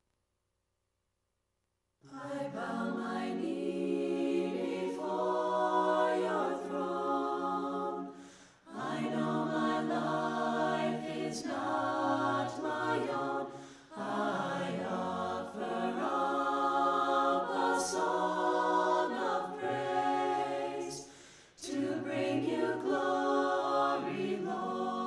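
Choir singing a cappella in sustained phrases with short breaks between them, starting about two seconds in after silence.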